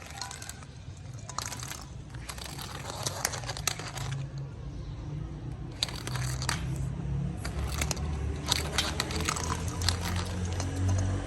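Irregular bursts of clattering and scratching from cats playing with an interactive cat toy ball, with a low hum underneath.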